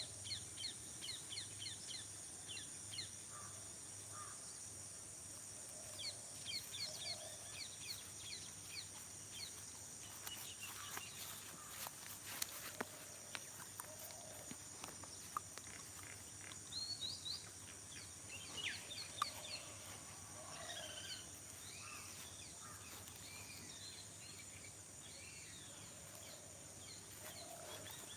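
Rural morning outdoor ambience: many birds chirping and calling in short repeated phrases over a steady high-pitched insect drone, with a soft low call recurring every couple of seconds.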